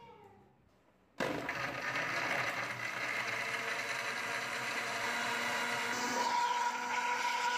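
Electric countertop blender switching on suddenly about a second in and running steadily, blending ice cubes and mint leaves in water. Its tone shifts a little about six seconds in.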